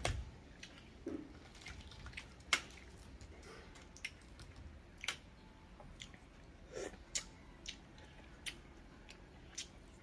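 Metal spoon tapping and picking at the shell of a balut (fertilized duck egg): light, scattered clicks of cracking eggshell a second or so apart.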